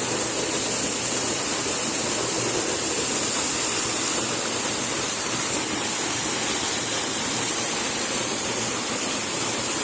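Waterfall pouring steadily, a constant rush of falling water.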